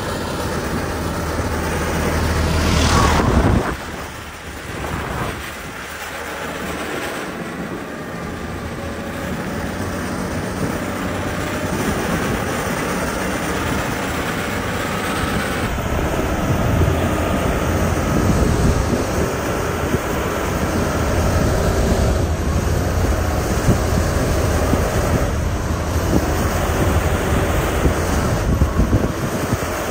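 Diesel engine of heavy road-construction machinery running under load with a deep, steady rumble. It swells to a peak about three seconds in, drops off suddenly, then builds back and holds steady.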